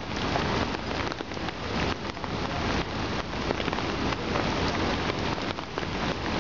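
Steady rain falling on the water of an outdoor swimming pool and its wet deck: a dense, even wash of countless small drop impacts.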